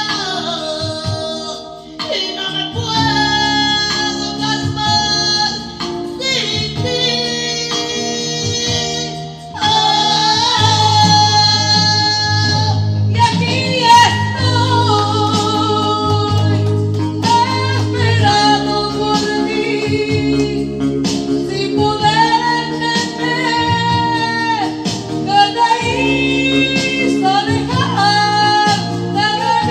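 A woman singing karaoke into a handheld microphone over a music backing track with guitar. The singing grows louder about a third of the way in.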